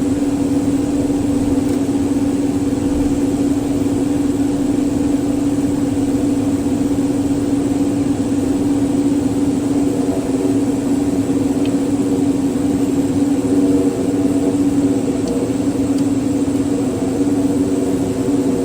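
Steady engine drone of a Cessna 441 Conquest's twin Garrett TPE331 turboprops: a constant hum with one strong steady tone over a broad rushing noise, unchanging throughout.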